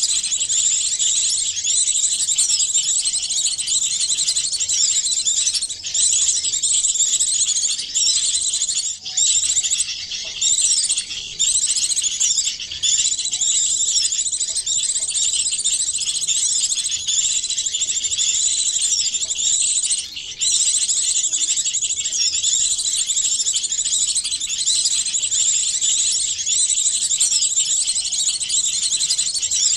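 Many small songbirds' calls layered into one dense, continuous high-pitched chirping chatter: a mixed bird-lure recording made to draw small birds in. It drops out briefly a few times.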